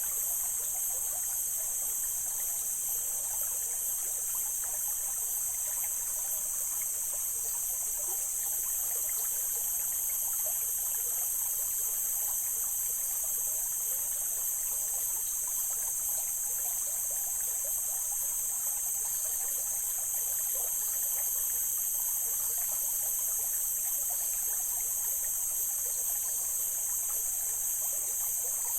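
Mountain stream water flowing and trickling steadily over rocks, with a loud, steady high-pitched hiss over it.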